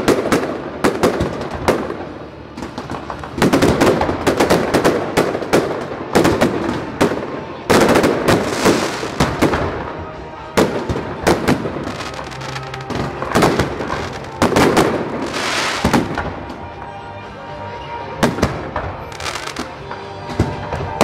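Fireworks display: aerial shells bursting in quick volleys of loud bangs and crackle. The volleys come in clusters every couple of seconds, with brief lulls between them.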